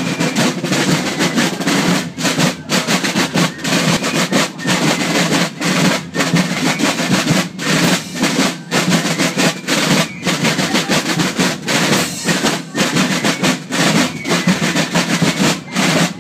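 A carnival band's rope-tensioned field drums played together: loud, steady marching drumming with rolls.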